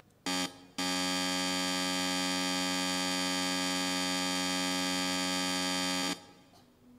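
Electric stage buzzer: one short buzz, then a long steady buzz of about five seconds that cuts off abruptly. It is the signal that the performance is about to begin, sounding over the closed curtain.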